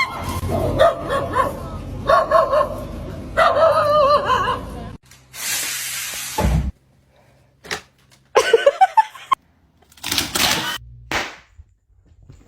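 A dog vocalizing: drawn-out wavering whines or howls for the first few seconds, then a quick run of sharp barks a little past the middle. A stretch of hissing noise comes about five seconds in.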